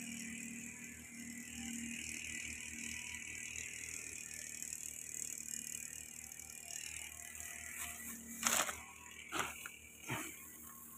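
Fertilizer sack's plastic liner rustling and crinkling in three short loud bursts near the end as the sack is opened, over a faint steady background noise.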